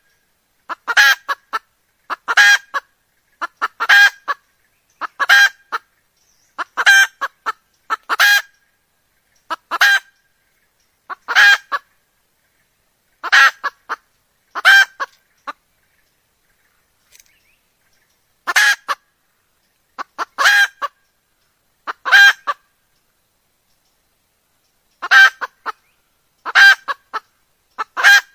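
Red junglefowl hen calling: short cackling calls, each a quick run of notes, repeating about every one and a half seconds, with breaks of a few seconds around the middle. It is the call of a hen ready to mate, used as a lure to bring junglefowl cocks in.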